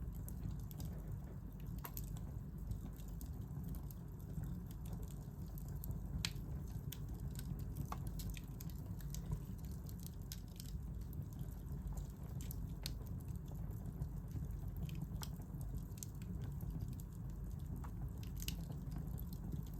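Wood fire in a fireplace crackling: irregular sharp pops and snaps, a few louder ones, over a steady low rumble of the flames.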